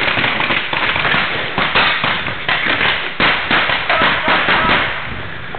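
Pellet guns firing, many sharp pops in quick, irregular succession, easing slightly near the end.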